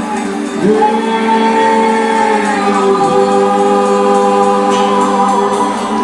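Music with several voices singing long held notes, sliding up into a sustained chord just after the start and moving to another held chord about halfway through.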